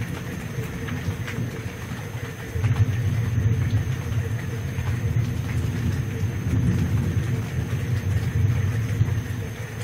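Thunder rumbling, a low rolling rumble that swells about two and a half seconds in and rolls on for several seconds before easing off.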